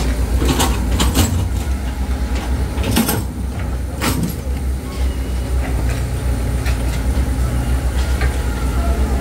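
A heavy engine running steadily with a deep low rumble, and several sharp knocks or clanks over it in the first half.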